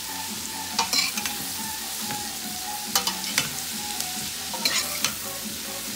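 Shredded cabbage, celery and carrots sizzling as they sauté in butter in a stainless steel pot, stirred and tossed with a metal spoon. The spoon scrapes and knocks against the pot several times over a steady sizzle.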